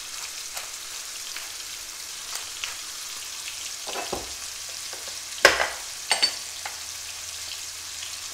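Chicken strips sizzling in melted butter and olive oil in a skillet, a steady hiss with small scattered pops. A sharp knock comes about five and a half seconds in, with lighter clicks just before and after it.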